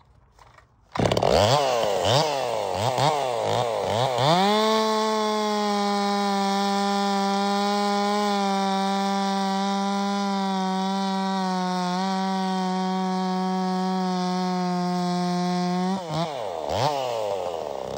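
Farmertec MS361 kit-built two-stroke chainsaw cutting through a log. It comes in suddenly about a second in and revs up and down, then runs at a steady full-throttle pitch through the cut for about eleven seconds, and goes back to blipping revs near the end.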